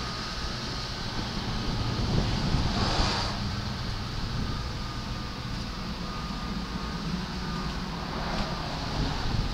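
Wind buffeting the microphone over a steady low rumble, with a brief gust of hiss about three seconds in.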